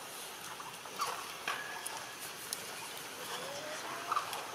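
A few short, soft animal calls over faint outdoor background, with light clicks; about three seconds in, one call slowly rises in pitch.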